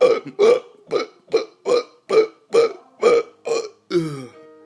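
A man hiccuping uncontrollably in a rapid string: about ten loud, voiced hiccups in four seconds, the last one trailing off lower in pitch.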